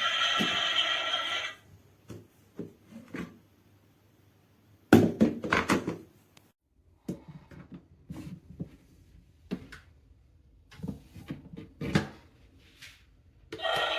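Background music that stops after about a second and a half, followed by scattered short knocks and thuds in a small room, loudest in a clatter about five seconds in; music starts again near the end.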